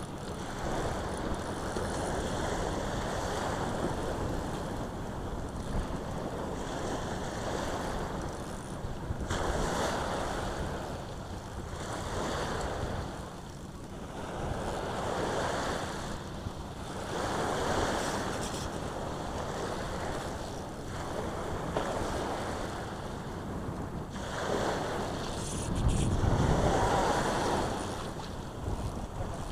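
Small waves breaking and washing up a sandy beach, surging and falling back every few seconds, with wind on the microphone.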